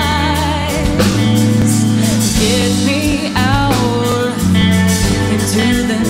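Live band playing a slow pop ballad, with steady low bass notes under a woman's voice singing held notes with vibrato and a rising slide about three and a half seconds in.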